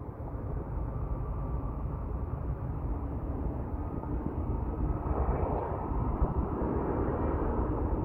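Steady low outdoor rumble of wind on the microphone and road traffic, growing a little louder about five seconds in.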